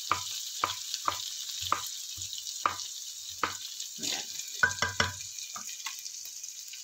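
Garlic and red onions sizzling in oil in a frying pan, with a steady high hiss. A wooden spatula stirring them knocks and scrapes against the pan about twice a second.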